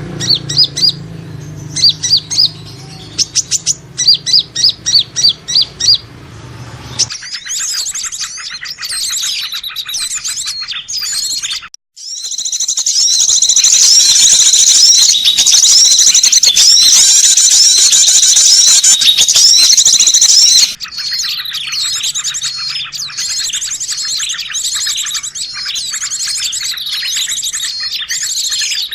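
Recorded lure calls of small songbirds. First comes a run of sharp, evenly repeated high chirps over a low hum. After an abrupt cut there is dense, rapid high twittering, with a brief break partway through; it is loudest in the middle stretch and then continues a little quieter.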